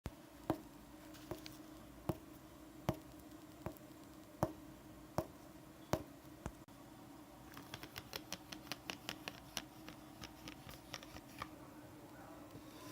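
Sharp, evenly spaced taps, about one every three-quarters of a second, for six seconds, then a quicker run of lighter clicks, four or five a second, that stops near the end, over a steady low hum.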